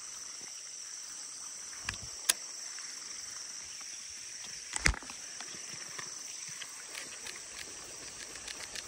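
Steady high-pitched insect chorus, with a few sharp knocks: two close together about two seconds in, and a louder one about five seconds in.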